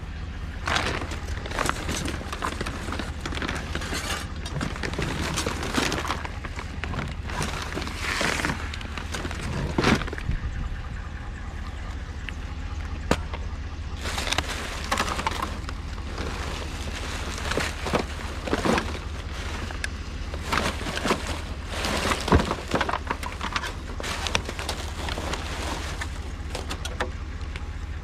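Steady low rumble of a running vehicle, with irregular clattering and sharp knocks scattered throughout.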